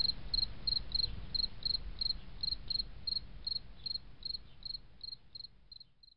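A cricket chirping in an even rhythm, about three short high chirps a second, over a faint low rumble, fading out near the end.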